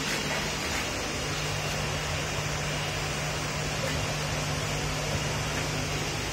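Steady interior hum and hiss inside an EN57AKM electric multiple unit's passenger car, with a constant low drone from the train's onboard equipment and no rail-joint clatter.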